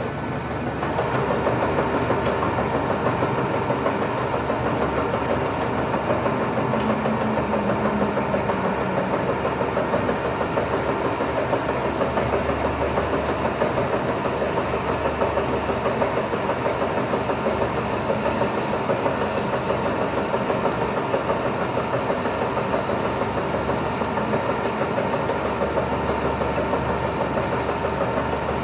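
Turret lathe running steadily while cutting a large aluminum blank held in its chuck. The machine noise comes up about a second in and then holds even, with a steady whine in it.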